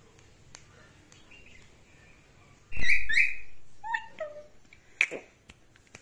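Indian ringneck parakeet vocalizing: a loud squawk with a low thump at its start, about two and a half seconds in, then a few shorter notes, including two falling whistled ones, and another sharp call near the end.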